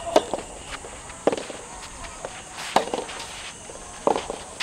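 Rackets striking a soft rubber tennis ball in a rally, the first hit being the serve: four sharp pops about a second and a half apart.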